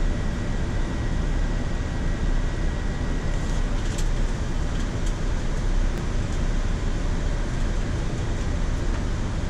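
Steady rush of airflow and air-conditioning noise on a Boeing 787-9 flight deck during the descent. A faint high steady tone fades out about three and a half seconds in, and a few faint ticks follow.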